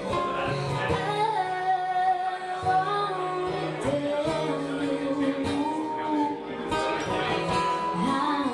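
A woman singing a slow song while strumming an acoustic guitar, her voice holding long notes over the chords.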